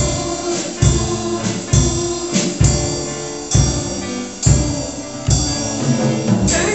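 Music with a steady drum beat, a low kick drum about once every second under sustained instrumental tones.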